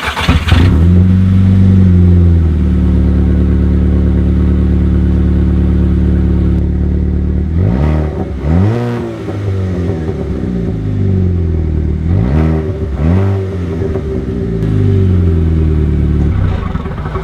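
VW GTI engine running loud through an open downpipe, with no catback exhaust fitted. It starts up with a brief flare right at the start and settles to a steady idle. In the second half it is revved three times, each rev rising and falling back to idle.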